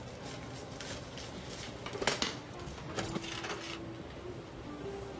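Coins clinking and clattering on a counter as change is counted out: a run of small clicks, with the sharpest clink about two seconds in and a short jingle about three seconds in.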